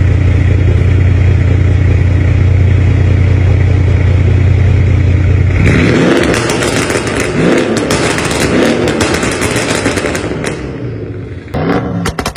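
Loud car engine and exhaust: a steady deep drone for about the first half, then revved up and down repeatedly with crackling pops from the exhaust. Near the end it cuts abruptly to another engine revving.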